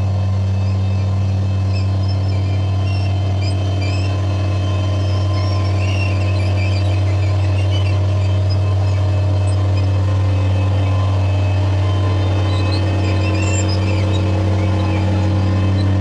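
Engine of a walk-behind Dingo compact utility loader running steadily at constant speed, with scattered faint high squeaks over it.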